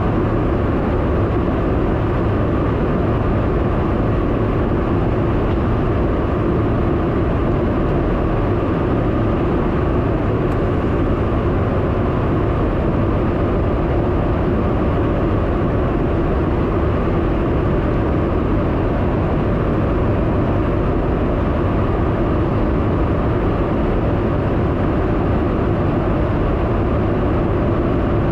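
Steady in-flight noise inside a KC-135 Stratotanker's boom operator pod: engine drone and rushing air, even and unchanging, with a faint hum running through it.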